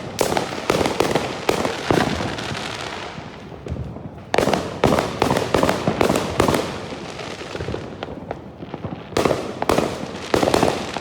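Fireworks going off in quick runs of sharp bangs and crackles, in three clusters: at the start, from about four seconds in, and again near the end.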